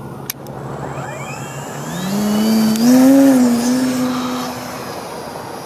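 Electric RC airplane's motor and propeller spooling up for a takeoff run. A whine climbs steadily in pitch, then a strong propeller buzz swells, is loudest about three seconds in, and holds steady before easing off.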